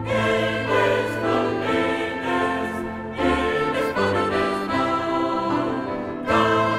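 Background music: an orchestral piece with a choir singing held notes.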